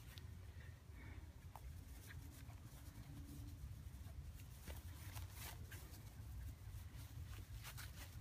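Quiet background: a low steady rumble with faint, scattered ticks and rustles.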